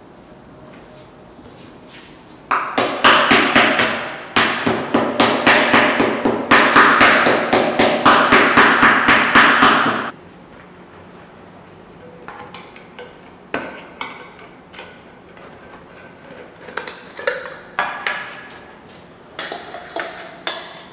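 Cobbler's hammer striking the bottom of a Goodyear-welted boot held on a shoe jack: a fast run of sharp blows, several a second, lasting about seven seconds and then stopping. Lighter scattered taps and clicks follow.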